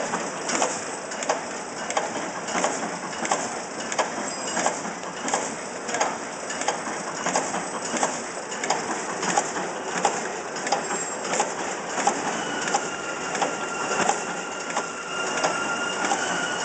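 Pocket tissue automatic packing machine running: a steady mechanical clatter with a regular knock about one and a half times a second. A thin steady whine joins in near the end.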